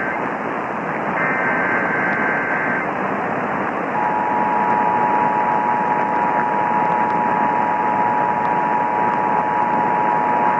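NOAA Weather Radio weekly test alert heard through a hissing radio receiver. A burst of the warbling digital header data comes about a second in. At about four seconds the steady two-tone alert alarm starts and holds.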